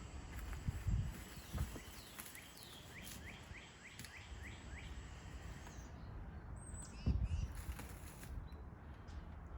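A songbird calling a quick run of about eight short chirps, roughly four a second, over steady outdoor background noise. Two dull low thumps are louder, about a second in and again near the end.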